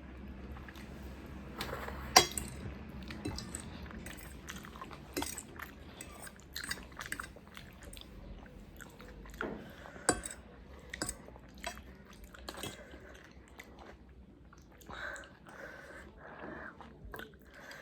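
Close-up eating sounds: a person chewing and biting food, with scattered sharp clicks of utensils against a dish.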